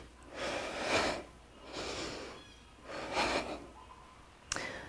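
A woman's heavy, effortful breathing during crunches: three forceful breaths about a second apart, in time with the repetitions.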